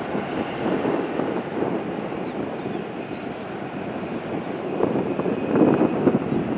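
Boeing 737-800's CFM56-7B jet engines running at taxi power: a steady rumble with a faint high whine, growing louder about five seconds in.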